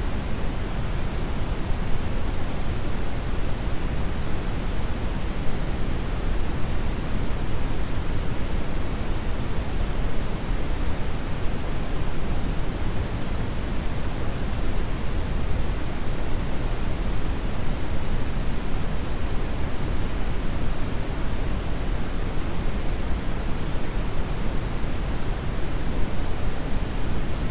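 Brown noise: a steady, even hiss-like rush weighted toward the low end, with no changes or events.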